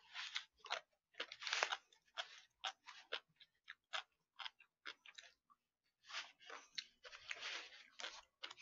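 Close-miked chewing of a crisp food, with crunches in irregular runs that are densest about a second and a half in and again near the end. The food is a mayonnaise-dressed kelp-noodle (cheonsachae) salad, described as crunchy.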